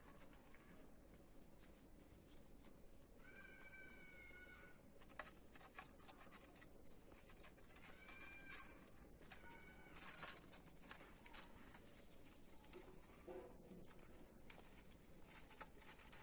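Faint animal calls: a few short, high, steady-pitched calls, about three and a half seconds in, then around eight and nine seconds in, with scattered soft clicks and rustles near the middle.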